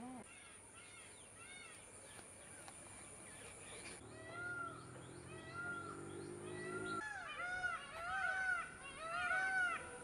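Birds calling in short rising-and-falling chirps, sparse at first and much thicker over the last three seconds.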